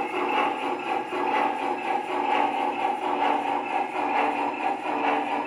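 Model Heisler No. 6 geared steam locomotive running on a three-rail layout, its sound system giving a steady, rhythmic chuff.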